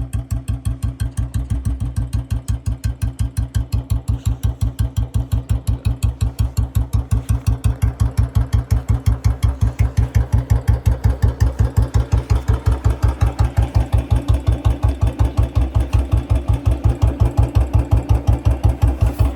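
Older Royal Enfield Bullet 350's single-cylinder engine idling through a short bottle silencer with a C bend: a steady, even thump of about five beats a second, with no revving.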